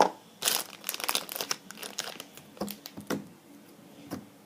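Plastic zip-top bag crinkling and crackling as slime is handled and worked out of it, in irregular bursts that are busiest in the first few seconds and thin out near the end.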